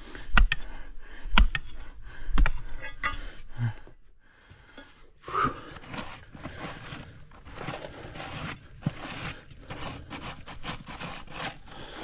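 Three sharp knocks about a second apart, then, after a short pause, a stretch of scraping and rubbing, as of hard objects being handled and moved about.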